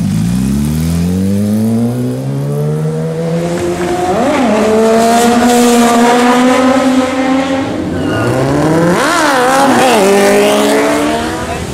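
Sport motorcycle engines accelerating hard through the gears: the pitch climbs steeply, holds high, then climbs again in a second run with quick jumps at the gear changes, and falls away near the end.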